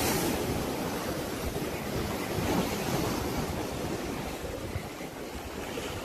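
Wind buffeting the microphone over the wash of sea waves, a steady rushing noise that slowly eases.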